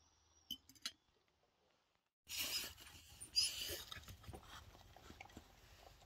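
Two light clinks about half a second in, then a sharper clink as a china plate is set down on the ground, followed by a dog eating pie from the plate, giving a run of small quick mouth sounds.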